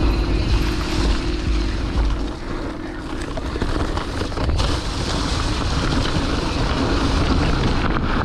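Mountain bike rolling along a dirt trail: wind noise on the camera microphone over tyre rumble and frame rattle, with the deepest rumble in the first two seconds.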